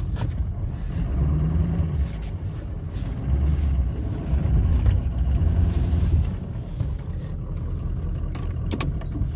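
Pickup truck engine revving under load, its rumble swelling and easing, as the truck pushes fallen trees with its front plow. It is loudest through the middle, with a few sharp clicks near the end.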